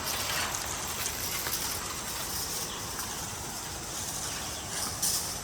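Waterfall, water rushing steadily.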